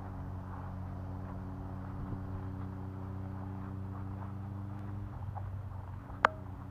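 A steady, low engine drone in the background, with one sharp, brief knock that rings for an instant about six seconds in.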